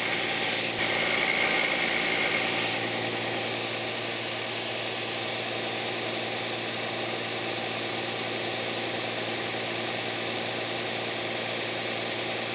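Porter Cable belt sander grinding a cast aluminum part held against the belt, with a rasping hiss for the first few seconds. About three seconds in the grinding stops and the sander runs on steadily with no work on the belt.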